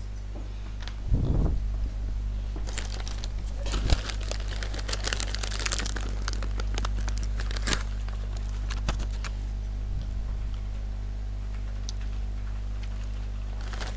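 A thin white sheet crinkling and rustling as it is handled, densest from about three to six seconds in, after a thump about a second in; a few small clicks follow.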